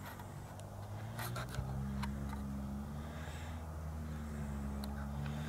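A low, steady hum with a few faint clicks scattered through it.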